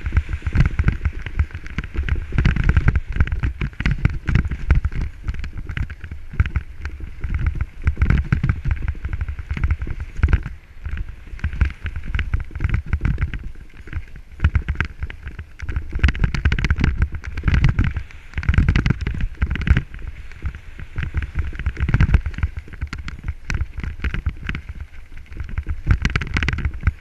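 Mountain bike descending a rough gravel trail: wind buffeting the helmet-mounted camera's microphone, with the tyres crunching over loose stones and the bike rattling in quick clicks.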